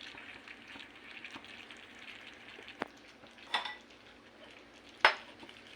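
Pork teriyaki in soy and oyster sauce sizzling faintly in a pan over the heat. A metal utensil clinks against the pan three times, most loudly about five seconds in.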